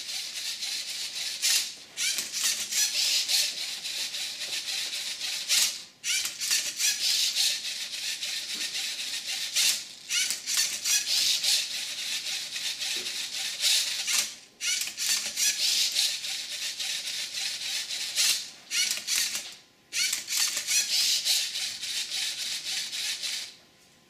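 Lego Mindstorms NXT cube-solving robot at work: its servo motors and plastic gears whir while the Rubik's cube rattles as it is tipped and turned. The noise comes in runs of a few seconds with brief pauses between moves, and stops abruptly near the end.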